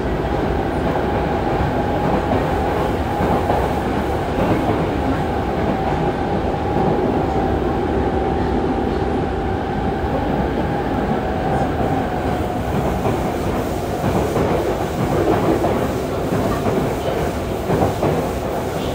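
Yokohama Municipal Subway 3000A-series train running between stations, heard from inside the car: steady wheel-on-rail rumble with some clickety-clack from the track joints. A steady whine from its Mitsubishi GTO-VVVF traction drive fades out about two-thirds of the way through.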